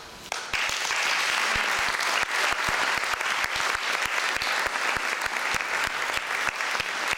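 Audience applauding: a few single claps at first, then from about half a second in steady, dense clapping.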